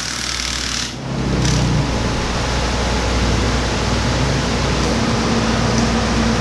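Steady mechanical drone, like a fan or generator, with a low hum under an even hiss. The sound briefly dips and shifts about a second in, and a faint steady tone joins it later on.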